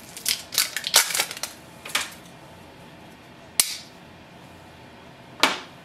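Plastic packaging crackling in short bursts for about two seconds as an ink cartridge is unwrapped, then a sharp snap a little past halfway as the orange cap is pushed off the cartridge, and another sharp click near the end.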